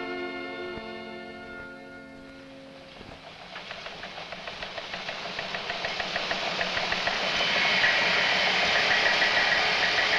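Held chords of a film score fade out over the first couple of seconds. Then the rapid, even clatter of textile mill machinery fades in and grows loud, running steadily from about eight seconds in.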